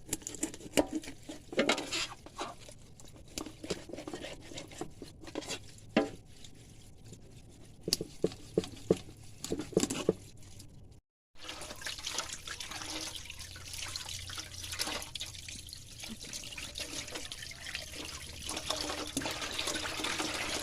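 Water dripping and splashing, broken by knocks and clatter of handling, for the first half. After a sudden break about halfway, a steady hiss of running water.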